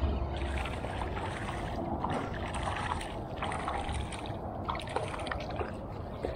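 A hooked fish thrashing at the surface beside a kayak, throwing up irregular splashes and spatters for about five seconds, over a steady low rumble of wind on the microphone.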